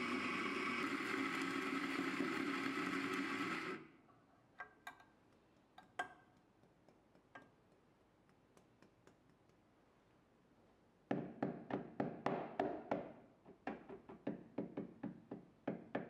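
Electric espresso grinder running, grinding beans into a portafilter, then cutting off about four seconds in. A few light clicks follow, then from about eleven seconds a rapid run of sharp knocks, several a second.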